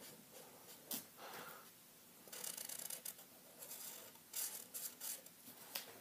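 Felt-tip marker scratching on paper in a series of short, quick coloring strokes, faint.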